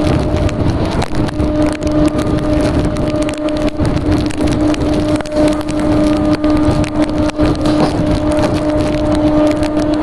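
Indian Railways EMU suburban train running at speed: a loud, steady rush of wheel-on-rail and wind noise heard from the open doorway. A steady pitched tone with overtones sounds over it, dropping out for about a second at the start.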